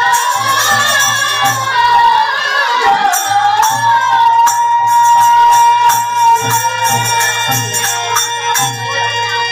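Bengali devotional kirtan music: women singing over a steady beat of low drum strokes and clashing hand cymbals. About four seconds in, the melody settles into a long held note.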